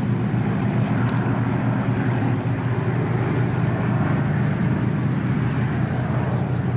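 Two Spitfires flying overhead, their piston engines giving a steady, continuous drone.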